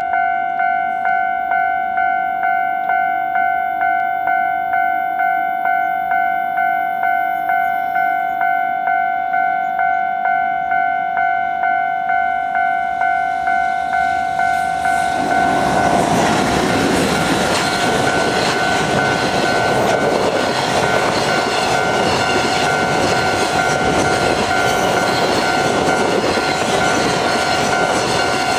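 Japanese level crossing warning bell ringing a steady, evenly repeated electronic ding, about one and a half a second. About halfway through, a train arrives and runs past the crossing, its wheels and running noise rising to a loud rush that carries on under the bell.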